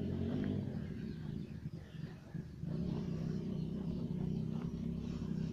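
Steady low rumble with a faint hum that dips briefly about two seconds in.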